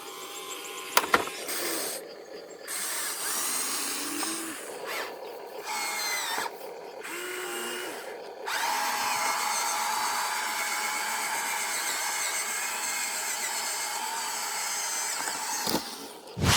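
Small electric motors and plastic gearboxes of radio-controlled model vehicles whirring, stopping and starting several times, then running steadily through the second half. A sharp click about a second in.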